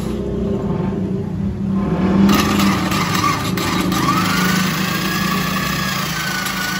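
Power drill spinning a spring-loaded cylinder hone inside an engine block's bore, the hone stones grinding against the cylinder wall with a steady drone. About four seconds in, a higher whine rises and holds.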